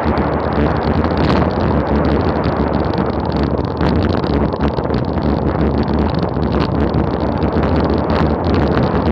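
Loud, steady wind rush buffeting the action camera's microphone on a road bike descending at about 40 mph.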